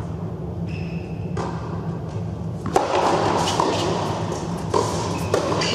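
Tennis rally on an indoor hard court: sharp racket strikes on the ball about a second apart from roughly halfway in, with a shoe squeak about a second in, over a steady low hum.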